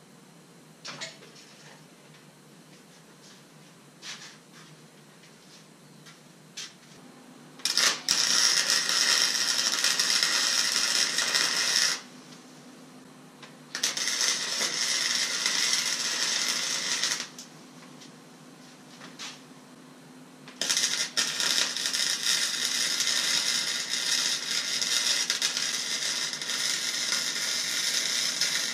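Wire-feed welder arc welding a bracket onto an exhaust tip pipe: three runs of steady, loud crackling, the first starting about eight seconds in and the last and longest about eight seconds long, with a low hum under each run. Before the first run there are only a few light clicks and knocks.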